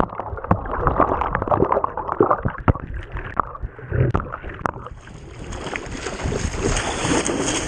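Ocean water splashing and gurgling right at the microphone, muffled, with many sharp splashes. About five seconds in, the muffling lifts into a steady rush of wind and surf.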